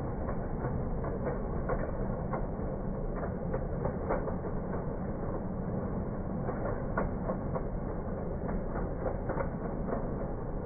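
G-scale model freight cars rolling along floor-laid track: a steady low rumble of the wheels with irregular clicks as they pass over the rail joints, slowed down by slow-motion recording.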